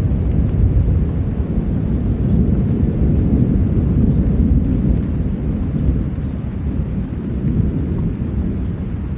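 A long, low roll of thunder rumbling over steady rain, slowly dying away through the second half.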